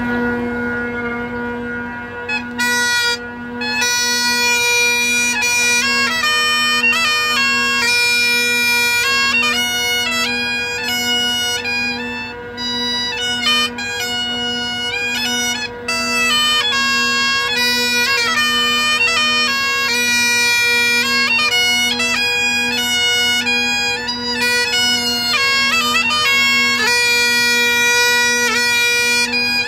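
Great Highland bagpipe playing a medley of tunes. The steady drone sounds alone at first, and the chanter melody comes in about two and a half seconds in.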